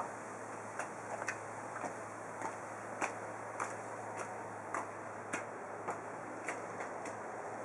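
High heels clicking on concrete in steady walking steps, about two a second, over a steady background hiss and faint low hum.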